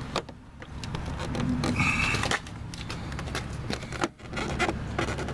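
Plastic door trim being pried against its hidden retaining clips: scattered small clicks, knocks and scrapes, with a brief squeak about two seconds in.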